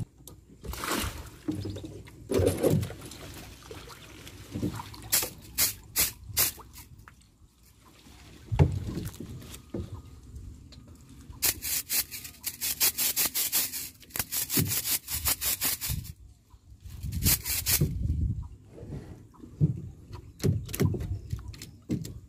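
Water splashing and sloshing around a person wading chest-deep, in irregular bursts, with a dense run of quick splashes about halfway through.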